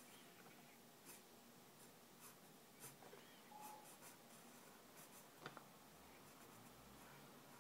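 Faint, short scratching strokes of a pencil on sketchbook paper while drawing, with one sharper tick a little over two-thirds in.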